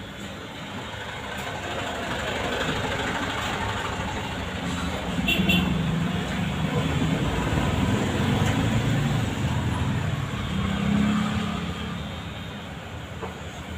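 Road traffic noise: passing vehicles rumbling, swelling louder from about two seconds in and easing off near the end.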